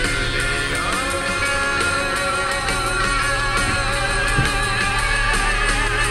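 Music led by guitar, with sustained, slightly wavering notes.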